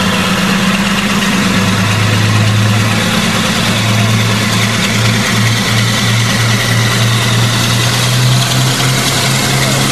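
An engine running steadily, its low hum slowly rising in pitch.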